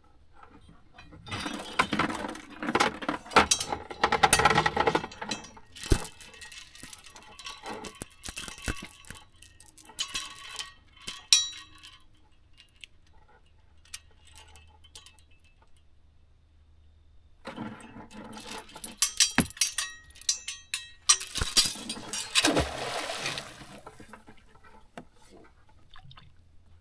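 Rattling, clinking and knocking of small hard items being handled close by, in two spells with a quiet stretch of several seconds between.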